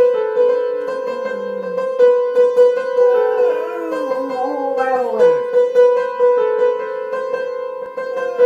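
A dog howling along to plucked-string music: its voice slides down in long wavering glides over a steady held note in the music, with the longest, deepest falling howl about five seconds in.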